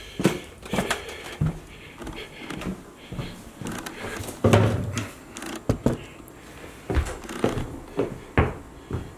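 Knocks and rustles of the camera being handled and set down, then footsteps of Blundstone 068 boots on a ceramic tile floor, about two steps a second, starting about seven seconds in.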